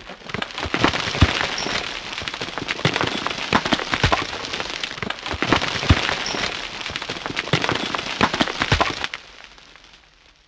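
Title-sequence sound effect of crackling, crumbling debris: a dense crackle with scattered sharp cracks and deeper thuds, fading out about nine seconds in.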